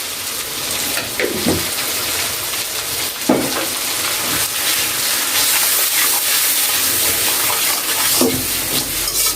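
Ground spices and tomato sizzling steadily in hot oil in a pan, being fried down (koshano) for a curry masala, with a few short spatula scrapes.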